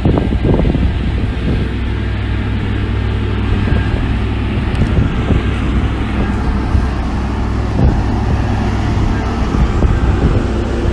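Heavy diesel earthmoving machinery running steadily under load, with a deep, even engine rumble and a few brief knocks, one about eight seconds in.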